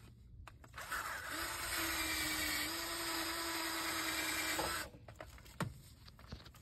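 Cordless drill with a wire brush wheel spinning against a brake caliper, scrubbing off old flaking paint: a steady motor whine with a scratchy rasp, starting about a second in and stopping just before five seconds. A brief click follows.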